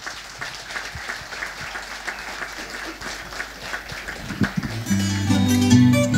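Audience applauding, then about five seconds in an acoustic guitar and a second guitar-type plucked string instrument start playing, strumming the opening of a desgarrada accompaniment.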